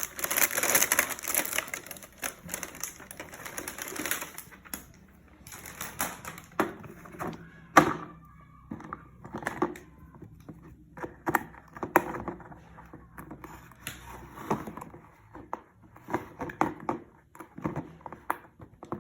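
Packaging crinkling for about four seconds, then irregular sharp clicks and knocks as a cake container is handled and its parts fitted together, with one louder knock near the middle.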